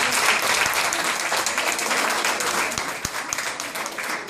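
Audience applauding, many hands clapping in a dense, steady patter that eases a little near the end.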